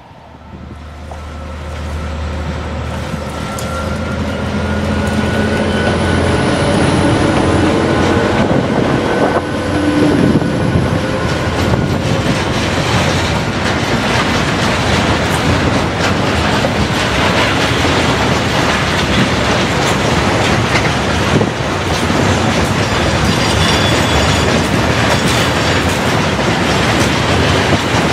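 Freight train passing close by behind two diesel locomotives. The engines' low hum grows louder over the first several seconds as they approach. After the locomotives go by, a long string of hopper wagons rolls past with a steady rumble and wheel clatter.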